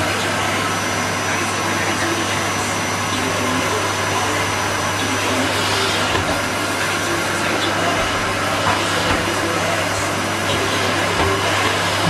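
Henry cylinder vacuum cleaner running steadily with a constant hum.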